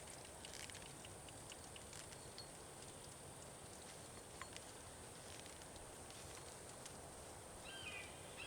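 Near silence with a few faint light ticks and clicks over a steady faint hiss, and a bird beginning to chirp in short falling notes near the end.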